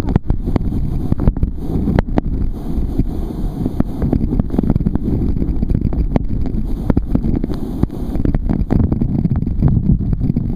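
Waterfall roaring close up, a loud steady low rush, with spray hitting the microphone in frequent sharp taps.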